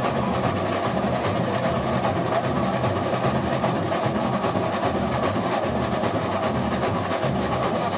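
Samba school bateria playing at full strength: massed surdo bass drums and other percussion keep up a dense, steady samba rhythm.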